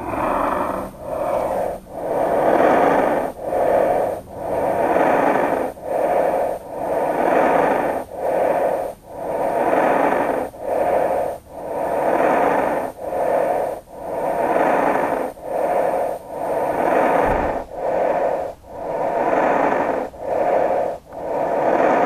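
Lung sounds of a patient with severe COVID-19 pneumonia: rapid breathing heard as rushing noise, a longer sound then a shorter one for each breath, about one breath every two seconds.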